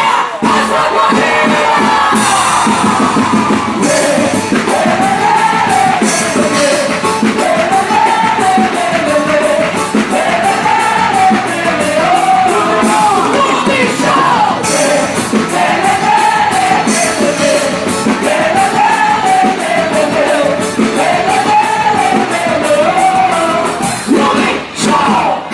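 Music with singing and a steady percussive beat, a wavy melody line repeating about every two seconds.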